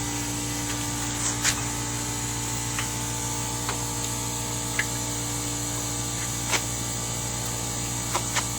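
A few short, light clicks and taps from handling parts during a brake job, scattered over a steady background hum and hiss.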